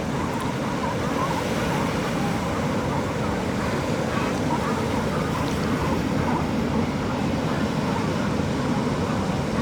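Steady wash of ocean surf mixed with wind, an even unbroken rush.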